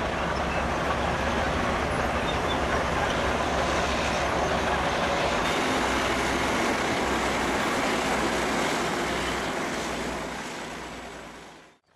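Heavy bulldozer machinery running: a steady, dense mechanical din of engine and tracks with a low hum underneath, fading out near the end.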